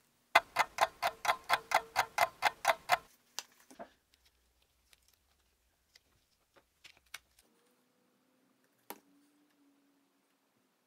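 Clock ticking sound effect: a quick, even run of about thirteen ticks, roughly five a second, stopping about three seconds in. After it come a few faint clicks of plywood segments being handled on the workbench.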